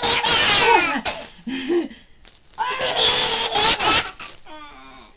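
A baby laughing hard as she is tickled, in two loud, high-pitched bursts, the second about two and a half seconds in, with a short wavering squeal near the end.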